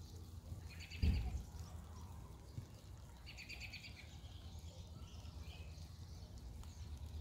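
A bird gives two short, rapid chattering calls, about a second in and again about three and a half seconds in, over a steady low outdoor rumble. A dull low thump, the loudest sound, comes about a second in.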